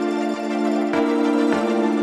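Instrumental background music: sustained chords that change about every half second.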